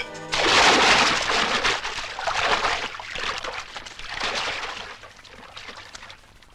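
Water splashing and sloshing: a loud rush about half a second in that fades away unevenly over the next few seconds.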